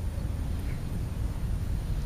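Steady low outdoor rumble with an irregular flicker, and a faint short chirp about two-thirds of a second in.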